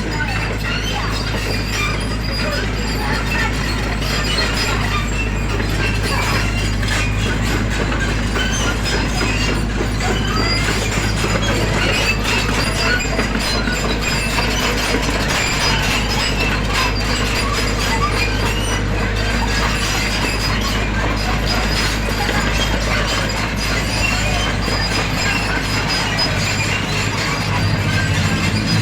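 SANY SY55C mini excavator working: its diesel engine runs steadily under a continuous scatter of metallic clanks and squeaks from the tracks, hydraulics and bucket as it levels a road surface.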